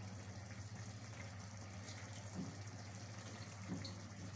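Pot of rice simmering in chicken stock, bubbling faintly as the last of the water cooks off, over a steady low hum.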